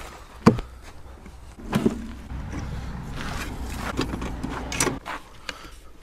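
Fiat Doblo camper van's door latch clicking open sharply about half a second in. A couple of knocks follow, then rustling and a few clacks as gear is handled around the open van.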